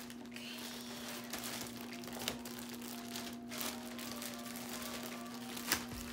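Plastic packaging crinkling and rustling as it is handled, with a few sharp crackles, over a steady hum from a room air conditioner.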